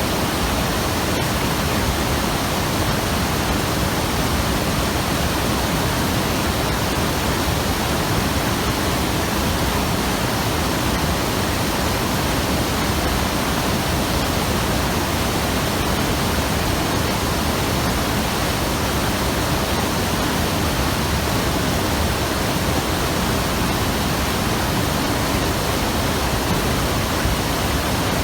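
Hayakawa river rushing over rocks: a steady, loud, unbroken roar of moving water.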